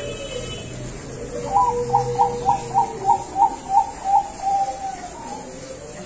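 Zebra dove (perkutut bangkok) cooing about a second and a half in: a quick run of about nine short staccato notes, ending in one longer held note.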